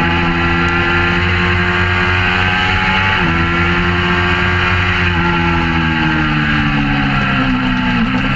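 Suzuki GSX-R600 K4's inline-four engine running hard at high revs, heard from onboard the bike with wind noise. The pitch dips briefly about three seconds in, then falls slowly through the second half.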